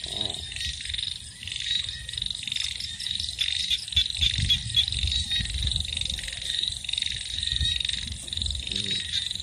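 Dense night chorus of frogs and insects: a steady high trilling made of rapid pulses, briefly louder about four seconds in, over low rumbling.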